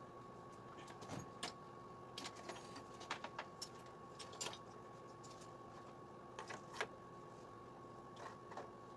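Scattered light clicks, taps and small rattles from hands working on a moped's wiring harness and connectors, over a steady faint hum.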